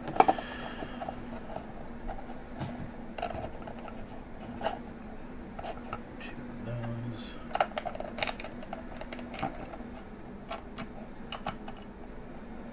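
Scattered small clicks, taps and scrapes of hands handling cables and fittings against a clear acrylic case, the sharpest click just after the start, over a steady low hum.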